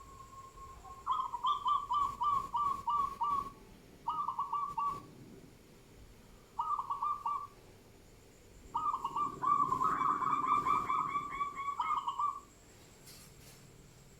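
A bird singing in four bursts of rapid repeated whistled notes, the last and longest lasting about four seconds, with short pauses between bursts.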